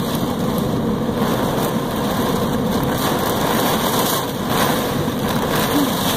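Torrential thunderstorm downpour with gusting wind: a loud, steady roar of heavy rain.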